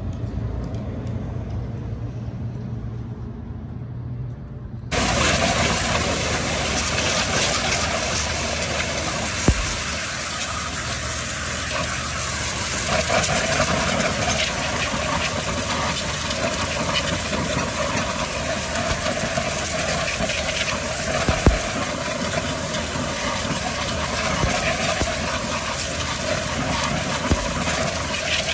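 Pressure-washer jet blasting water onto a car's tire and wheel: a loud, steady spray hiss that cuts in abruptly about five seconds in, with a steady hum underneath. Before it there is only a low rumble.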